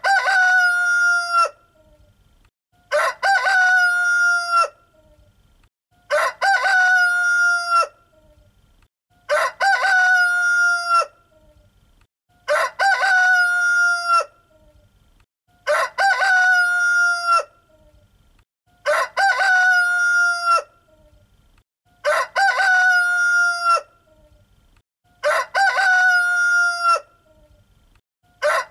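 Rooster crowing cock-a-doodle-doo, the same crow repeating evenly about every three seconds, each call lasting under two seconds.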